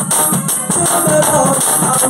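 Recorded music at a steady loud level, with a repeating beat and bright shaker or tambourine percussion, played through a sound system.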